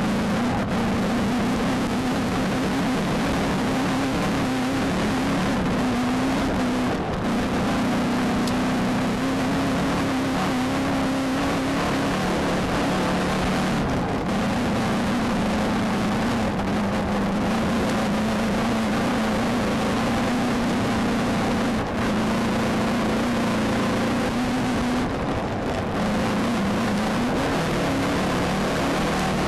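Volkswagen Beetle desert race car heard from inside the car while racing over dirt: the engine runs at a steady high pitch that wavers slightly with the throttle, under a constant loud wash of wind, tyre and chassis noise.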